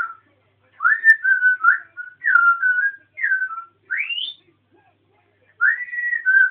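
African grey parrot whistling a rapid run of clear notes, most sliding down in pitch and one sweeping sharply upward about four seconds in, then a short pause and another whistled phrase near the end.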